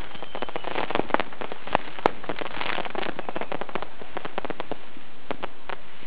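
A large stack of fireworks going off together: a dense, rapid string of bangs and crackles with no break, one sharper bang standing out about two seconds in.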